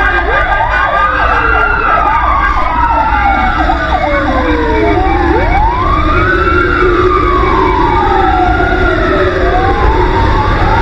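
Several emergency sirens of a fire truck convoy wailing at once, their pitches rising and falling in slow sweeps out of step with each other. A quick yelping warble comes in for a couple of seconds near the start. Under them is the steady low rumble of the moving truck.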